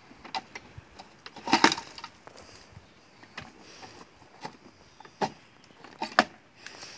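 Plastic bucket of a CAT Rolly Toys ride-on backhoe digging into dry soil, leaves and twigs: irregular scraping, crunching and snapping, with clicks and knocks from the toy's digging arm. The loudest crunch comes about a second and a half in, with sharp knocks a little after 5 and 6 seconds.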